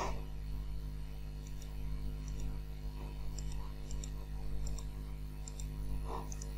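Computer mouse clicking, about seven quick double ticks spaced roughly a second apart, over a steady low electrical hum.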